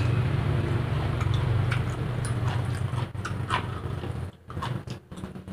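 Steady low hum of a motor vehicle engine running close by, fading after about three seconds, with scattered light clicks and short squeaks over it.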